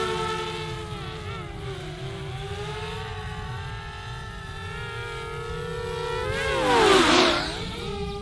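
DJI Spark quadcopter's propellers whining steadily overhead. About seven seconds in, the drone passes close: the whine gets louder with a rush of air, and its pitch dips and rises again.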